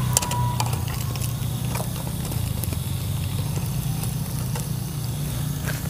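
Tapioca-starch snacks frying in a small pan of oil over a portable gas stove: the burner's steady low noise with faint sizzling, and a few clicks of a plastic spatula against the pan just after the start.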